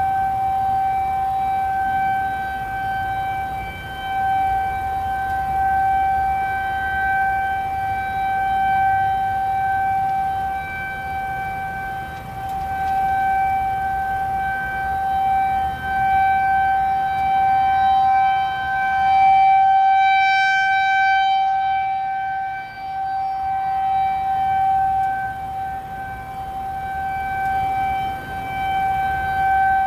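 Federal Signal 2001-SRN rotating warning siren sounding its steady alert tone, one unwavering pitch that swells and fades as the horn sweeps around.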